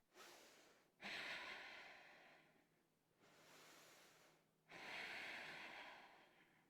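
A woman's slow, steady breathing close to the microphone during a yoga core exercise. There are three long breaths: a louder one about a second in, a softer one after it, and another louder one near five seconds.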